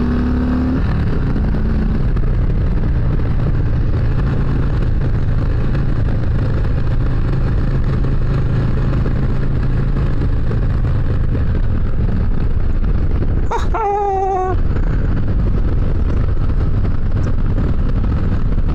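Harley-Davidson V-twin motorcycle under way, heard from the rider's microphone as a steady loud rumble of wind and engine, with the engine note clearer in the first second or so. A brief wavering high-pitched squeal about fourteen seconds in.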